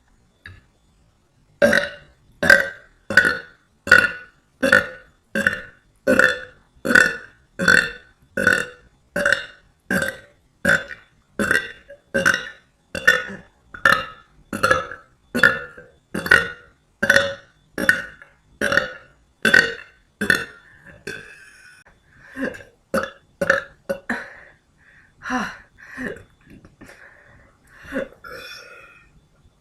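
A woman burping over and over: a long run of short, evenly spaced burps about one and a half a second, then from about two-thirds of the way through a looser, irregular string of burps.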